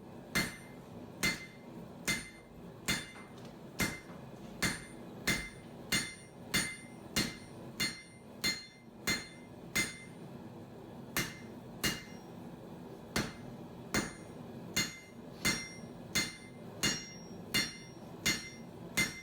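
Hammer blows on a steel bar at the anvil, about one every two-thirds of a second with a couple of short pauses, each strike giving a bright metallic ring: the bar being thinned out by forging.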